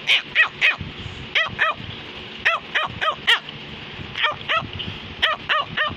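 Cavalier King Charles Spaniel barking: about sixteen short, sharp barks in quick runs of two to four.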